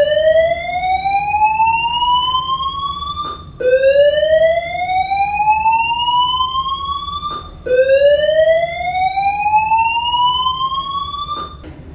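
School fire alarm voice-evacuation system sounding its slow-whoop alarm tone: three loud rising sweeps, each climbing in pitch for about four seconds, then restarting low.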